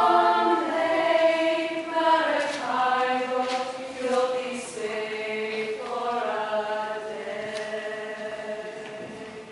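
Girls' vocal ensemble singing in harmony, apparently unaccompanied. The song's final chord is held for several seconds and dies away near the end.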